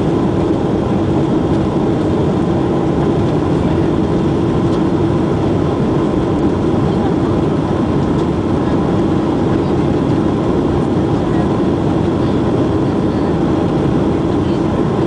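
Steady cabin noise of a Boeing 737-800 in its climb after takeoff: the CFM56 turbofan engines and the airflow over the fuselage, a loud, even drone with a faint steady hum above it.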